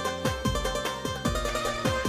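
Background music with a steady beat: quick plucked notes over a repeating bass.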